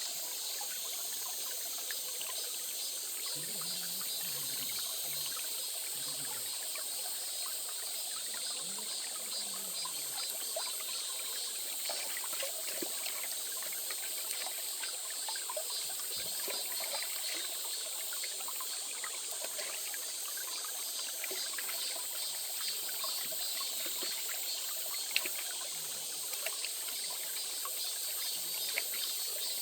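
A small stream trickling steadily over stones, with a few faint clicks near the end.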